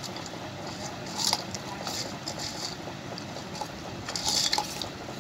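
Metal spoon stirring crisp fried noodles in a steel bowl. Scraping, clinking and crunchy rustling come in short irregular bursts.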